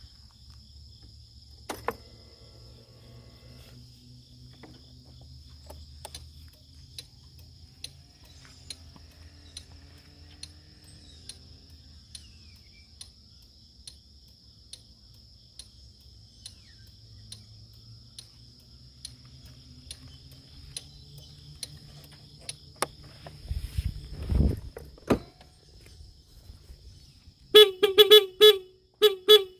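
Honda Dio scooter's electric horn sounding in a quick series of about five short beeps near the end. Before that, a faint regular tick repeats a little under twice a second.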